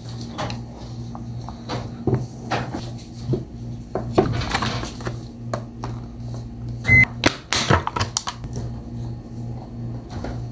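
Kitchen sounds: a steady low appliance hum, consistent with a microwave oven running, with scattered knocks and clatter of doors and dishes. One short high beep comes about seven seconds in, amid the loudest knocks.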